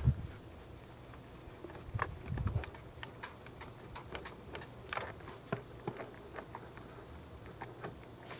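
A chenille microfiber mop head on an extension pole scrubbing the fibreglass front cap of an RV: soft scattered rubs and clicks, with a duller thump about two seconds in. A faint steady high-pitched hum, like insects, runs underneath.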